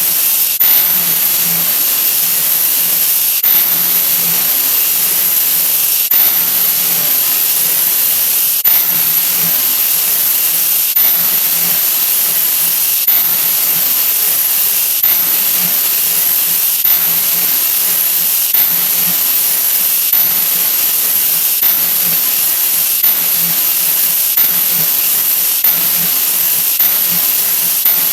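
A 'wha wha' sound effect digitally sped up so far that it has turned into a steady loud hiss, with a click at each new repeat. The clicks come closer together, from about three seconds apart to about once a second.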